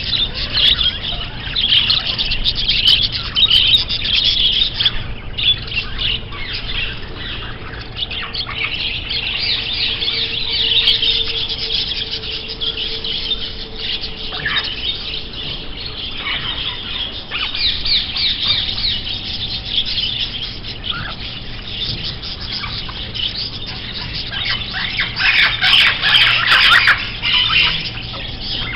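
Many small birds chirping and twittering together in a dense, continuous chorus, with the busiest, loudest stretch near the end.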